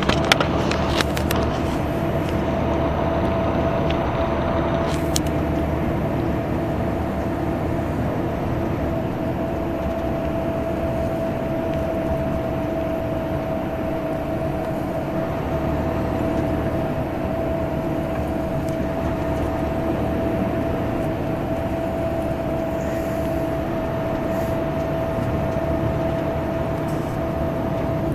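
Bus engine rumbling steadily at highway speed over road and tyre noise, with a constant high whine on top. A few light clicks come in the first seconds.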